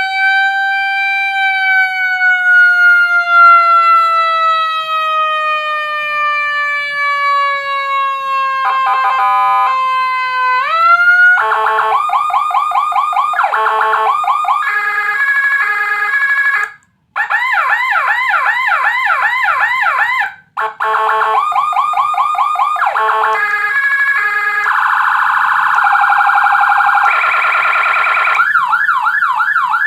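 Electronic vehicle siren module playing Whelen HHS 3200-style tones through a TOA horn speaker. It gives a long, slowly falling wail, then a quick rise, then switches through a run of tones: fast repeating yelps, choppy pulsed two-tone patterns and a steadier blare, with two brief cut-outs between tones.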